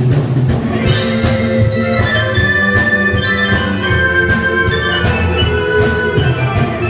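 Live band playing an instrumental stretch of a Thai luk thung song: drum kit and bass keeping a steady beat under a melodic lead line of held notes.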